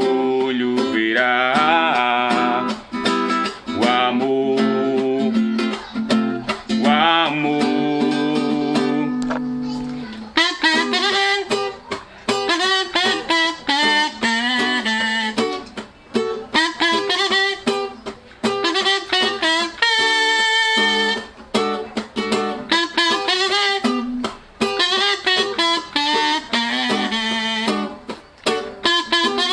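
Music with guitar: for about the first ten seconds, held melody notes that slide in pitch over a sustained chord, then a passage of quick plucked guitar notes.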